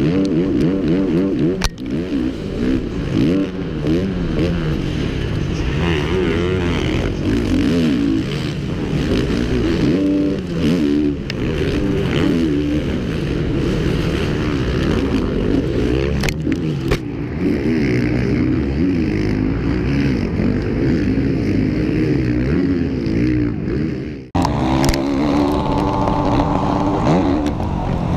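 Motocross bike engine revving hard and easing off over and over, its pitch rising and falling with the throttle, heard from on the bike itself. About 24 seconds in the sound breaks off briefly and picks up again.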